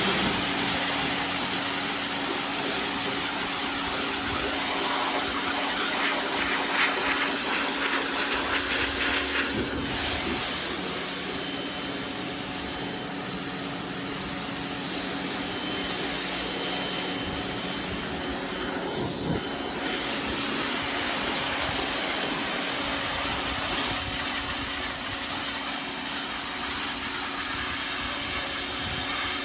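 Pressure washer spraying steadily, a loud, even hiss of the water jet over the constant hum of its pump motor, as it blasts green growth off brick.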